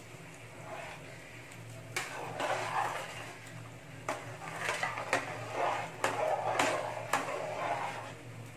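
A slotted steel spatula stirring rice through watery biryani masala in a large metal pot: wet sloshing and scraping, with half a dozen sharp metal knocks of the spatula against the pot. A low steady hum runs underneath.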